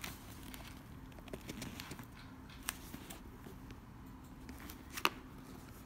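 Faint rustling and small clicks of a sneaker being handled and flexed open by hand, with one sharper click about five seconds in, over a faint steady hum.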